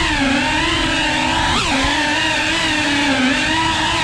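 FPV quadcopter's brushless motors and propellers whining, the pitch wavering up and down with the throttle, with a quick drop and rise about one and a half seconds in.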